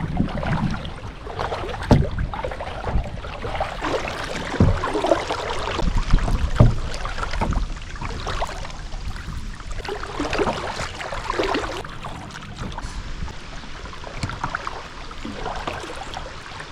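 Kayak paddle strokes splashing and dripping in river water, irregular, with a few low thumps in the first seven seconds.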